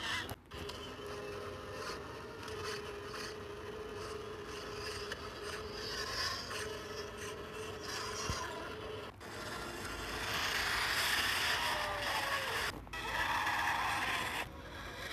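Brundlefly creature screech sound effect: raspy, scraping cries broken by a few short pauses, loudest in the later part. Near the end it gives way to the Brundlebooth creature's moan.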